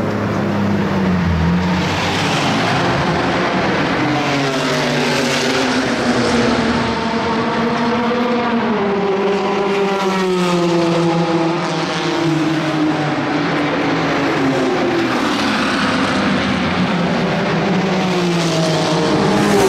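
Several historic racing cars driving up a race track straight one after another, their engines revving, with overlapping engine notes rising and falling in pitch as they pass.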